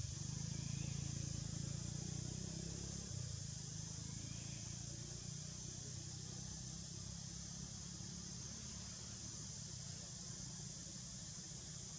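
Steady outdoor ambience: an even, high insect drone over a low rumble that eases after about six seconds.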